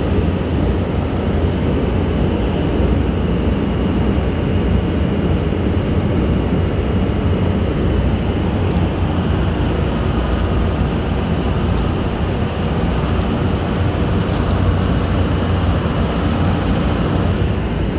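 Amphibious duck boat's engine running steadily, heard from aboard as an unbroken low rumble.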